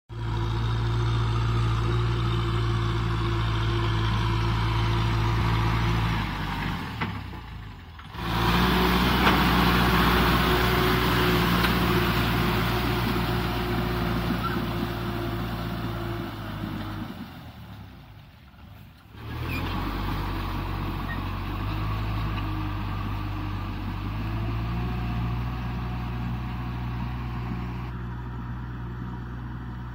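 Kubota M6040SU tractor's four-cylinder diesel engine running steadily under load while pulling a disc plow through wet mud. The sound dips briefly twice, about 7 and 18 seconds in.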